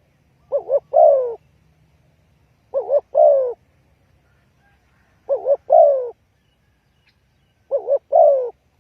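Spotted dove cooing: four calls about two and a half seconds apart, each two quick short coos followed by a longer, falling coo.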